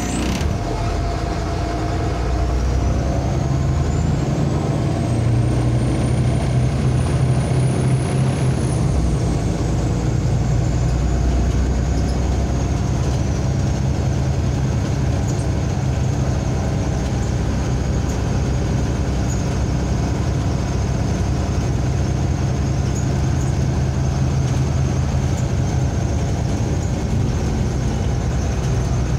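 MAZ-203 city bus under way, heard from inside the passenger cabin: a steady engine drone with a high whine that climbs over the first several seconds, drops away, then holds as a steady high tone.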